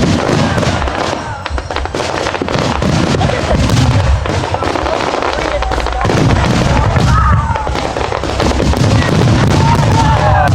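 Fireworks display: rapid crackling and popping shells over a continuous low rumble of booms, keeping up without a break.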